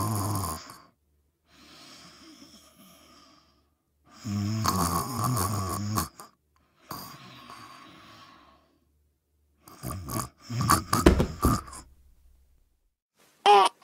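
Cartoonish baby-creature snoring for a sleeping Grogu (Baby Yoda) character: two long, low snores, each followed by a softer breath out. About ten seconds in comes a louder, choppier burst of sounds, and near the end a short, high, baby-like squeak.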